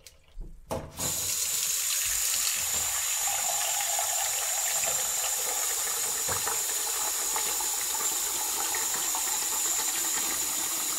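Kitchen sink faucet turned on about a second in after a few light knocks, then running in a steady stream into a container.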